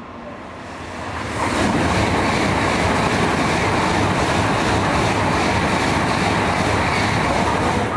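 N700-series Shinkansen bullet train passing through a station at high speed without stopping: a rushing wind-and-rail noise that builds about a second in, then holds loud and steady as the long train streams past.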